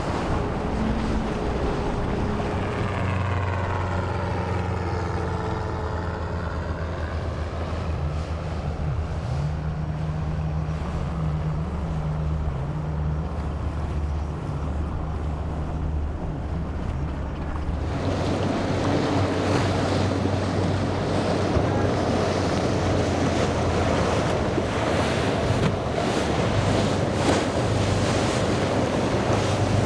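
Large powerboats running past at speed: a steady low engine drone mixed with the rush of their wakes and waves, with wind on the microphone. About two-thirds of the way through the sound changes to a louder, hissier wash of water.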